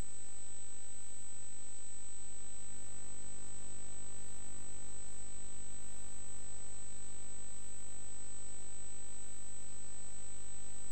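Steady electrical hum and buzz with a constant high-pitched whine above it, unchanging throughout.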